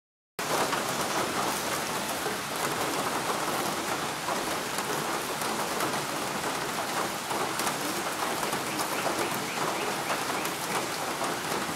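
Steady rain falling on a surface: a dense, even hiss of many small drops.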